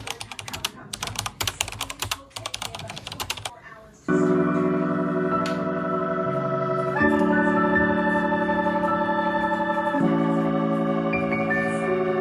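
Rapid keyboard-typing clicks for about four seconds, then sustained organ-like synth chords that change twice, about every three seconds.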